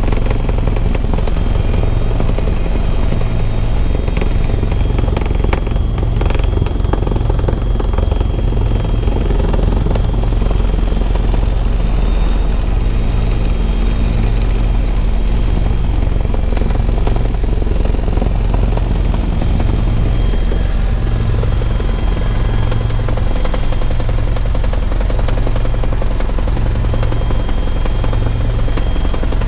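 Bell 412 helicopter in steady cruise: the twin turboshaft engines and main rotor running with a constant low drone and a thin, steady high whine, heard inside the cabin.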